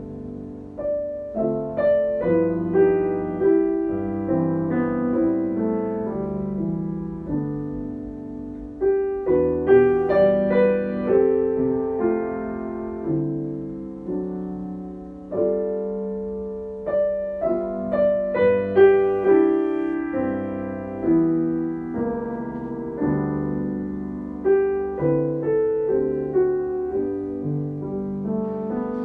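Solo piano music, a gentle melody over soft chords with each note dying away.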